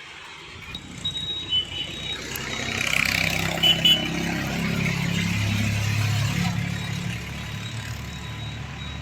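A motor vehicle's engine running, growing louder over the first few seconds and then easing off, with a few short high-pitched chirps over it.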